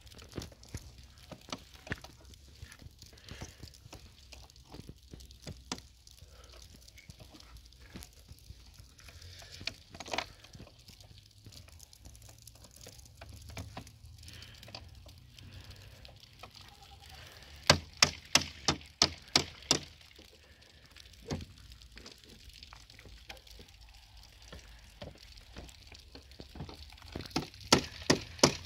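Scattered sharp ticks of small hail pellets landing. Two runs of louder, quick clicks come, one about two-thirds of the way through and one near the end.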